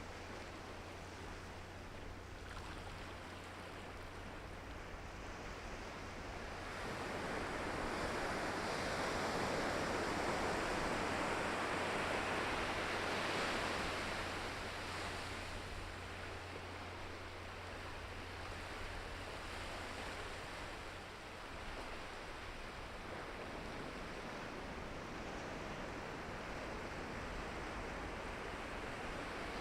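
Ocean surf washing onto the shore in a continuous rush. It swells louder for several seconds about a quarter of the way in, then settles back to a steadier wash.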